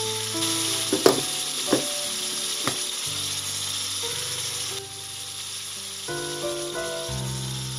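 Vegetables sizzling in a hot cast-iron pan, with three sharp clinks in the first three seconds as a glass lid is set on; the sizzle quietens under the lid about five seconds in. Background music plays throughout.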